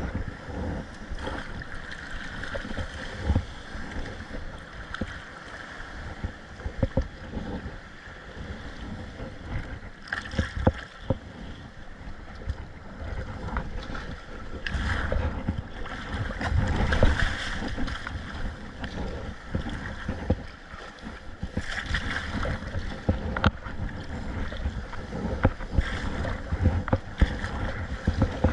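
Kayak out on rough sea: paddle strokes and water splashing around the hull, with scattered sharp knocks and wind buffeting the microphone. The water noise swells louder a few times, about halfway through and again a little later.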